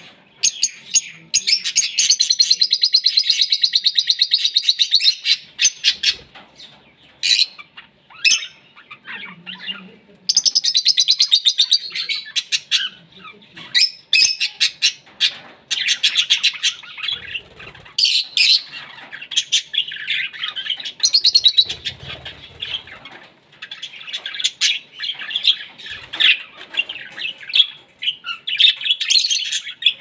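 A flock of caged budgerigars and lovebirds chirping and chattering nonstop in high, shrill calls, with long runs of fast trilled notes about two seconds in and again about ten seconds in.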